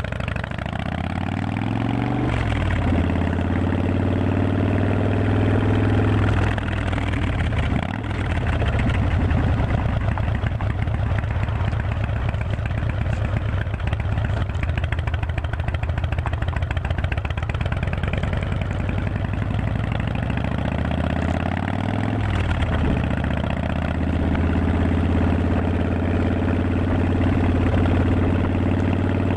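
Harley-Davidson V-twin motorcycle engine running under way. The engine note rises as it accelerates and drops at gear changes about two seconds in, around seven to eight seconds in, and about twenty-two seconds in.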